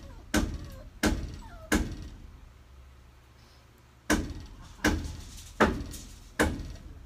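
Repeated heavy knocks, one about every three-quarters of a second, pausing for about two seconds midway; each blow rings out briefly. It is a steady pounding rhythm, like hammering.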